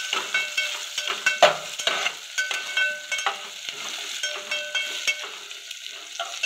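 Sliced onions, garlic and dried red chillies sizzling in hot refined oil in a metal pot, stirred with a metal spatula that scrapes and clinks against the pot again and again.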